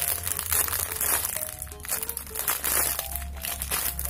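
Clear plastic bag crinkling as a foam squishy toy sealed inside it is handled and turned, with light background music playing.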